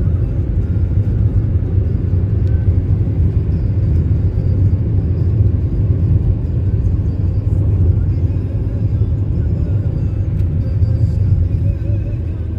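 Steady low rumble of a car driving at speed, heard from inside the cabin: engine and tyre-on-road noise.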